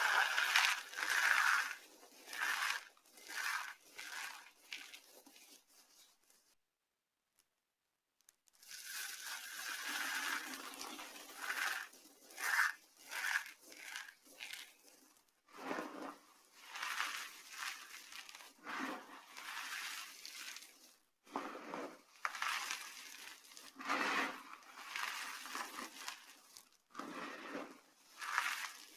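Dry soap being crushed and crumbled: a run of crisp crunching and crackling strokes, broken by a silent gap of about two seconds a quarter of the way in.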